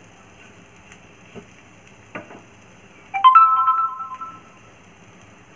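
A wooden spatula knocks a couple of times against a nonstick frying pan. Then, about three seconds in, a short electronic chime sounds: a few clear tones together that fade within about a second. The chime is the loudest sound.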